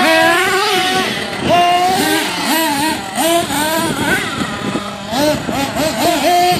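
HPI Savage X RC monster truck's small nitro engine revving up and down as the throttle is worked, its pitch rising and falling several times a second.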